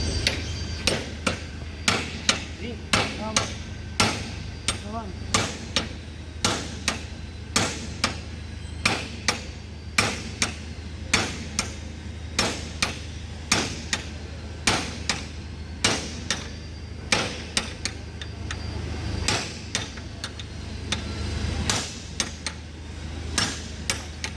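A hammer striking repeatedly, about two blows a second, over a steady low hum.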